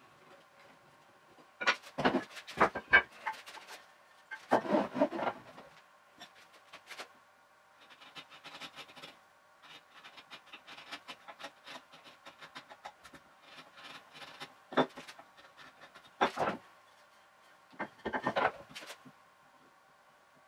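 Hand-tool work on wooden bench parts: several short bursts of wood knocking and scraping on wood, with quieter rubbing between them over a faint steady hum.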